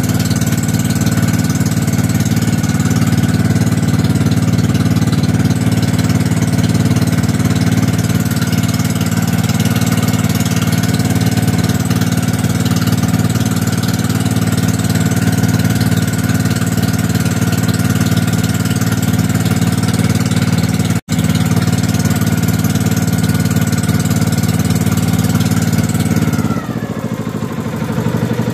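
Pumpboat (motorized outrigger boat) engine running steadily at an even pitch; about 26 seconds in it throttles down, the pitch falling and the level dropping as the boat slows.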